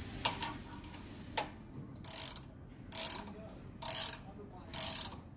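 Hand ratchet wrench being worked in strokes: a few sharp clicks at first, then rasping ratchet bursts about once a second.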